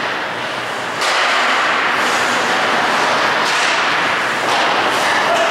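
Ice hockey play in an echoing indoor rink: a steady noisy rush with occasional sharp cracks and thuds of sticks, puck and boards. The noise steps up about a second in.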